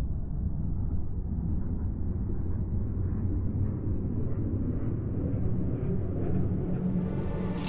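A deep rumbling sound-effect swell that slowly brightens as it builds, with no tune or beat.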